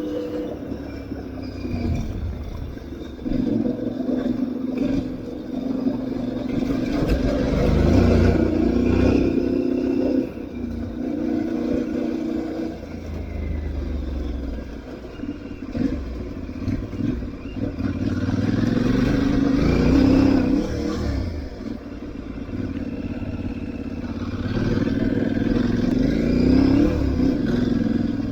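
Aprilia Tuareg 660's parallel-twin engine running under load off road, its note rising and falling again and again with the throttle.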